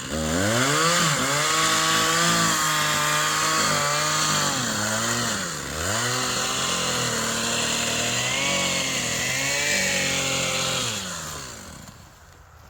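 Chainsaw running at high revs. Its pitch sags and recovers about halfway through, and it dies down shortly before the end.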